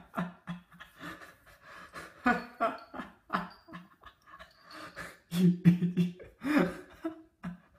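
A man laughing under his breath in short, breathy bursts, loudest about two thirds of the way through, with a few sharp knocks mixed in.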